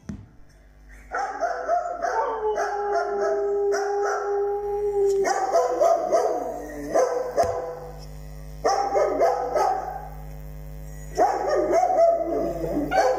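Siberian husky howling: long, wavering held howls that begin about a second in, broken by short pauses a few times.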